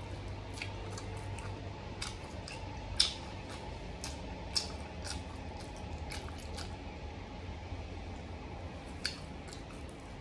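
Close-miked chewing of cooked pig ear, tongue and tail: a run of sharp wet clicks and crunches from the mouth, the loudest about three seconds in.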